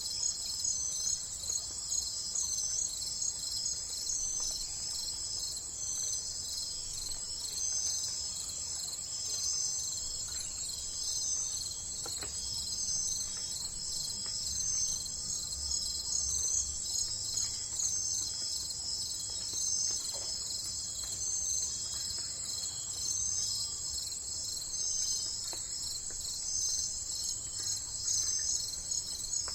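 Insects chirping in a dense, steady, high-pitched chorus with a rapid pulsing rhythm.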